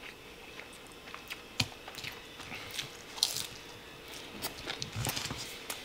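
Crispy karaage (Japanese fried chicken) being bitten and chewed close to the microphone: scattered short crunches and crackles, the sharpest about one and a half and three seconds in, with a run of them near the end.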